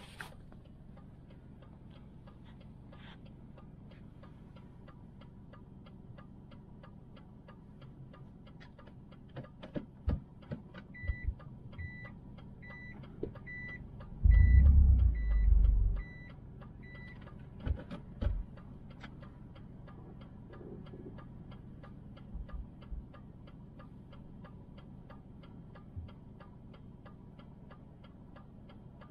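Cabin noise of a 1999 Subaru Forester STB: a steady low hum with fast, regular faint ticking. About halfway a string of short high beeps sounds for about six seconds, like a car's in-cabin reverse warning buzzer, and during it comes a loud low thump, with a few smaller knocks around it.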